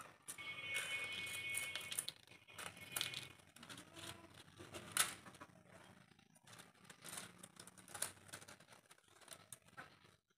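Large scissors snipping the sharp tips off date palm leaves, with the stiff leaves rustling in the hand; a scattering of sharp snips, the loudest about five seconds in.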